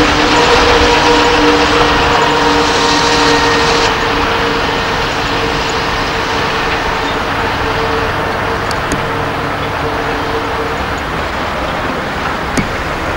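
Diesel engines of heavy Mercedes-Benz dump trucks running as the loaded trucks drive by: a steady engine drone with road and tyre noise. The sound shifts abruptly about four seconds in.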